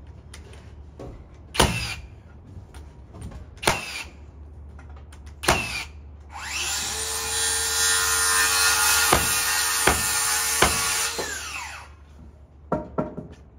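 Cordless framing nailer firing three sharp shots about two seconds apart, driving nails into a truss block. Then a power tool motor spins up, runs loudly with a steady whine for about five seconds and winds down.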